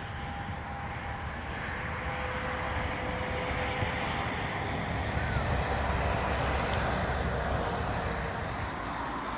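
Steady road and engine noise of a truck on the move: a low rumble under a broad hiss, growing a little louder around the middle.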